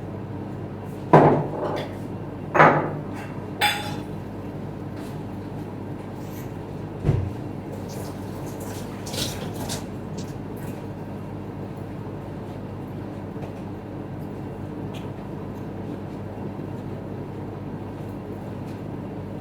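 Kitchen utensils and containers being handled, knocking and clinking several times over a steady hum. The three loudest knocks fall in the first four seconds, and a duller thump comes about seven seconds in.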